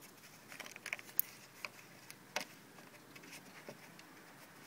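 Faint clicks and light knocks of the plastic rear trim piece of a Smart Fortwo 450 cabrio being handled and worked loose by hand. A sharp click comes about a second in and another a little later.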